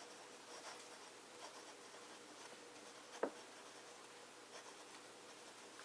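Medium-nib fountain pen writing cursive on paper: the nib scratches faintly and softly, with one short tick about three seconds in.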